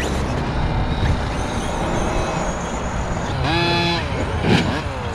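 Electric radio-controlled trucks driving, over a steady low rumble. Their motors give a short, steady high whine about three and a half seconds in, and falling whines near the end.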